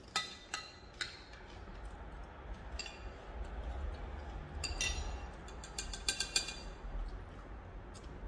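Metal spoon clinking and scraping against a glass bowl while eating: a few separate clinks at first, then a quick run of them in the middle.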